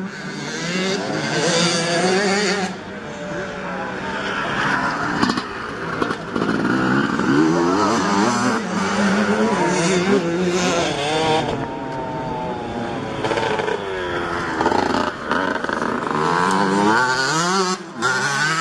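Two-stroke motocross bike engines revving hard, their pitch rising and falling with gear changes and throttle as several bikes pass one after another through a dirt-track corner.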